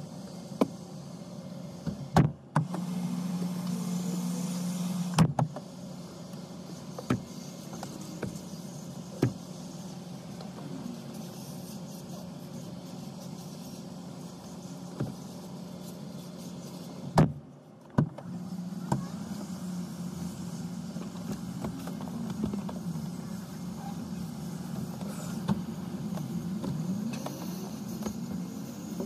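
Clunks, knocks and latch clicks of a car's rear seats being folded and set back in place inside the cabin, with one heavier slam about seventeen seconds in. A steady low hum of the car runs underneath.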